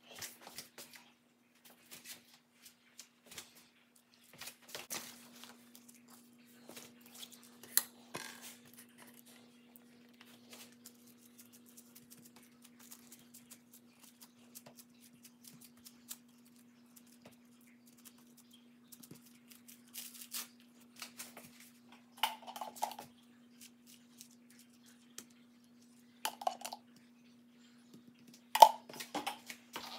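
Scattered light clicks, taps and rustles of hands handling sushi: cut rolls set down on a wooden board, rice pressed onto a plastic-wrapped bamboo rolling mat. A steady faint low hum runs underneath, and a few louder handling noises stand out, the loudest near the end.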